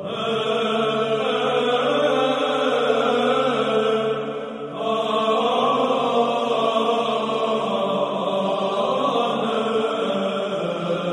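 Sung chant, voices holding long notes over a steady low drone, with a brief dip about four and a half seconds in.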